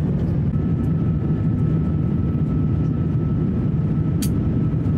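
Cabin noise of an Airbus A350-1000 in its climb after takeoff: a steady low rumble of the Rolls-Royce Trent XWB engines and airflow. A thin steady whine comes in about half a second in, and there is a short click near the end.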